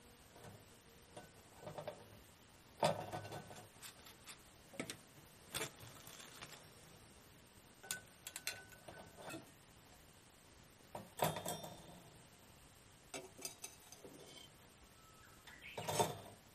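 Scattered metal clinks and knocks, some briefly ringing: a small cast-iron skillet and a mini iron griddle being moved about on a wire grill grate and handled with a metal spatula. The loudest knock comes near the end, as the griddle is set down on the grate.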